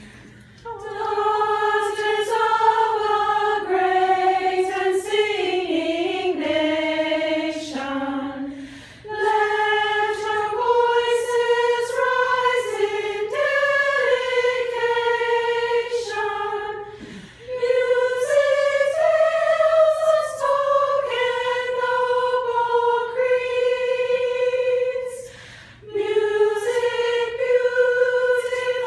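A small group of women singing a cappella in unison, in four long phrases with short breaks between them.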